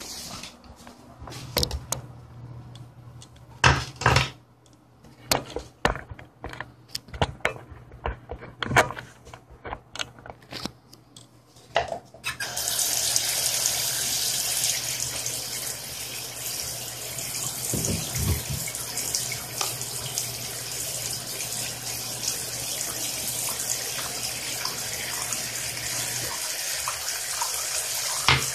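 Handling clicks and knocks for about the first twelve seconds, then water from a mini 12V brushless submersible pump's jet starts splashing into a sink basin with a steady hiss that lasts to the end. A low steady hum runs underneath until near the end.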